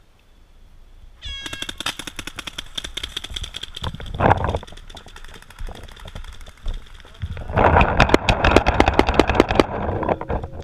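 Paintball markers firing in rapid strings of shots, with a dense barrage for about two seconds late on. A short rising tone sounds about a second in, just before the shooting starts.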